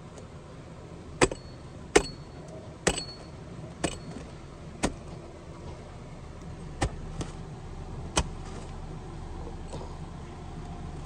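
Hatchet blows chopping into a mass of tree roots blocking a sewer: about eight sharp strikes roughly a second apart. The first four carry a brief metallic ring.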